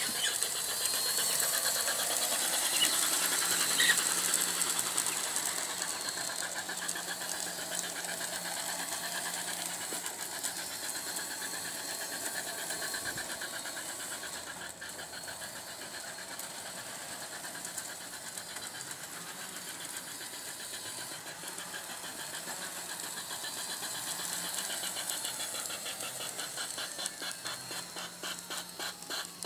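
Bachmann large-scale model steam train running on brass garden track: the locomotive's small electric motor and gears whir steadily with the wheels rattling over the rails. Loudest about four seconds in, with a quick regular clicking near the end.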